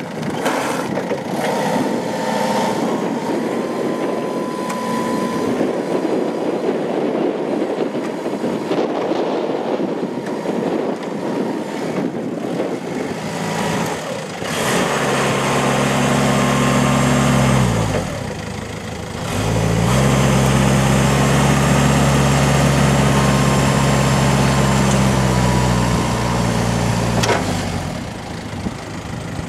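Toyota 8FDJF35 diesel forklift engine running as the truck drives up. About halfway through it revs up and holds high revs for a few seconds, dips briefly, then revs and holds again for longer while the hydraulics raise the mast. It drops back near the end.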